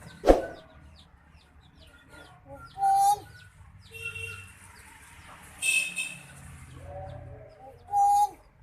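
A pet talking bird giving four loud, harsh, squawking calls, spaced about a second or two apart, with a sharp knock just before the first. Faint rapid chirping runs underneath.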